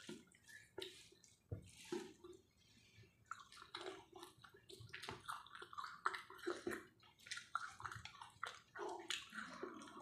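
Quiet eating sounds: soft chewing with wet clicks and smacks from the mouth, irregular and frequent.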